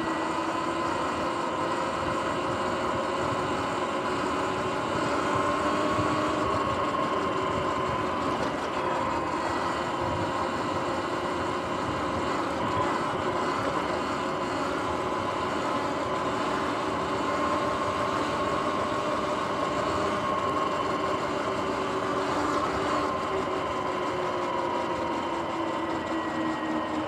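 Sur-Ron X electric dirt bike under way: the whine of its electric motor and drive, its pitch rising and falling gently with speed, over a steady rush of wind and tyre noise.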